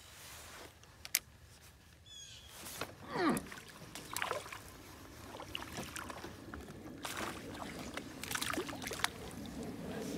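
Splashing water as a small hooked bass is played at the surface and reeled in to a small boat, with scattered clicks and knocks from the baitcasting reel and boat.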